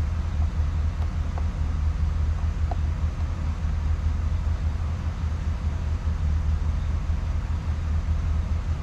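Chevrolet 2500 HD pickup's engine idling steadily, freshly filled with synthetic oil and sounding pretty smooth.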